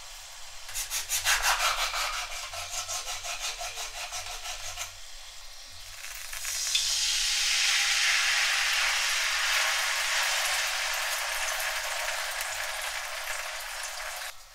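Tomato passata poured into a pan of hot frying oil, sizzling loudly as it hits the oil and then fading slowly. Before that, a few seconds of rapid, even crackling.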